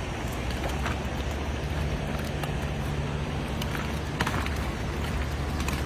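Steady rush of shallow river water with a low rumble, broken by a few light splashes and taps as fish are pulled from a wet cast net.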